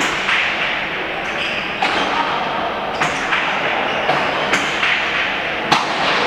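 A remonte rally: the hard pelota ball knocks sharply several times against the fronton's wall and floor and against the players' wicker baskets, ringing in the hall, with the loudest knock near the end. A murmur of spectators lies underneath.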